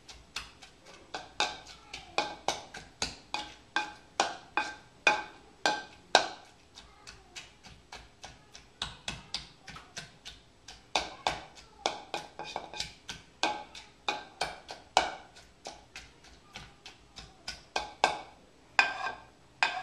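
A hand masher repeatedly knocking against a bowl while mashing avocado into guacamole: sharp knocks at about two a second, each with a short ringing tone from the bowl, softer for a stretch now and then.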